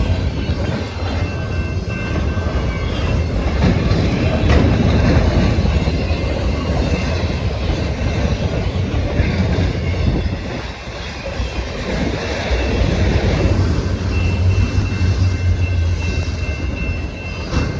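Freight train rolling past, a steady rumble of railcars on the track.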